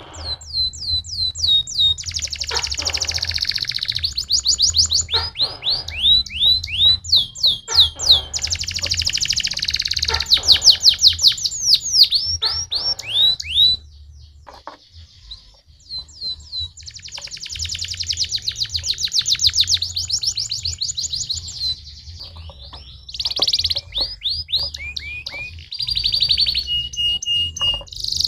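Domestic canary singing: fast trills of repeated high, downward-sweeping notes in long rolling phrases, with a lull of about two seconds midway and a short steady whistled note near the end. A low hum runs underneath.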